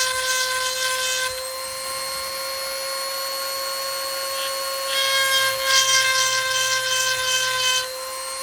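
Sharp Pebble 110-volt rotary tool running at high speed with a steady whine, its sharpening bit grinding a chainsaw chain tooth until about a second in, then again from about five seconds to near eight, running free in between.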